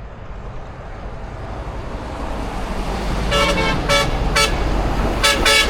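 A vehicle's engine rumble growing steadily louder, then from about three seconds in a truck horn sounding a rapid string of short toots, five or six blasts in quick succession.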